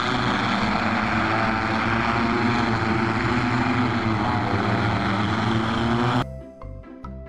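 Jetson ONE electric multirotor flying, its propellers and motors giving a steady whirring hum of several tones. It cuts off abruptly about six seconds in.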